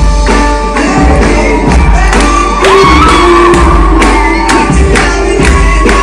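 Loud dance song with a singer over a strong, regular drum beat and heavy bass.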